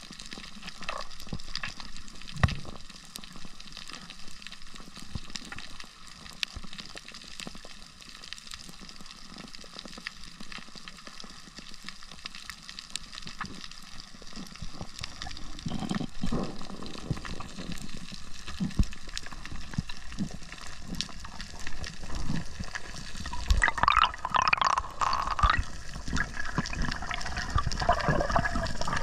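Underwater sound on a coral reef, heard through a submerged camera: a steady crackle of many small clicks over a water hiss. In the last few seconds louder water rushing and swishing comes in, as the diver moves up toward the surface.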